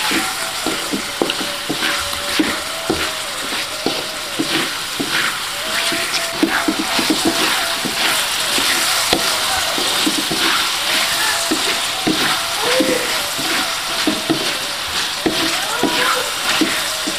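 Shrimp and chicken sizzling in a thick chilli and soy sauce in an aluminium wok. A wooden spatula stirs them continuously, scraping and knocking against the pan over a steady hiss.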